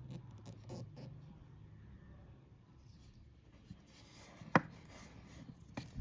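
Faint handling noise of fingers working a fishing lure and braided line over paper, with one sharp click about four and a half seconds in.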